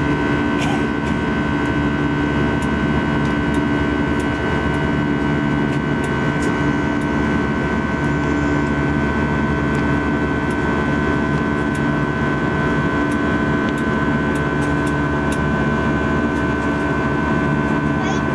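Steady cabin noise inside an Airbus A320 in flight: the constant rush of engines and airflow, with several fixed tones held unchanged.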